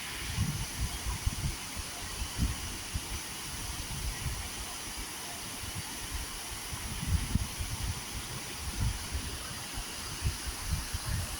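Wind buffeting the microphone in uneven low gusts, over a steady hiss.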